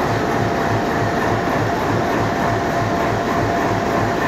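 Large diesel engine running steadily, with an even low throb of about four beats a second and a faint steady whine above it.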